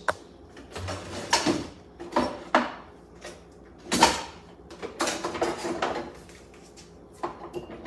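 Kitchen handling sounds while a fish is being cleaned: a run of short knocks and scrapes, irregular and about a second apart, the loudest about four seconds in.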